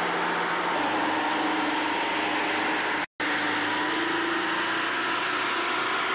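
A steady mechanical drone like a running engine, with a few faint wavering tones over a hiss. The sound cuts out completely for a split second a little after three seconds in.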